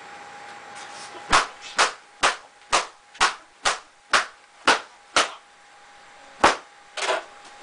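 A run of about nine loud, sharp bangs, roughly two a second, then a pause and two more near the end, each with a short echo of a small room.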